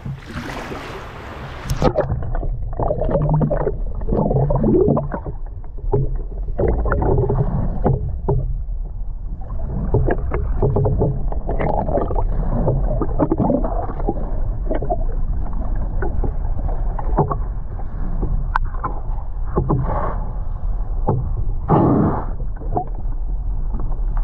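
Muffled underwater noise through a submerged action camera's housing: water moving in irregular surges, with scattered knocks and bumps. The sound turns dull and muffled about two seconds in, as the camera goes under.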